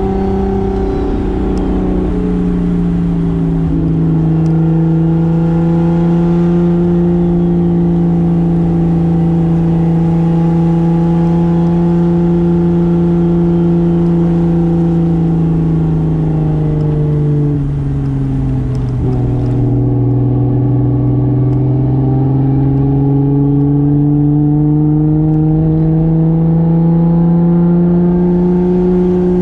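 Turbocharged 2JZ 3.0-litre straight-six in a 1995 Toyota Soarer running at steady cruise. The engine note drops about two-thirds of the way through, then climbs slowly as the car picks up speed again.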